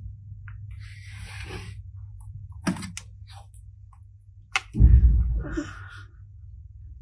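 Hands handling slime and small plastic toys: scattered clicks and sticky squishing over a low steady hum, with a heavier thud about five seconds in.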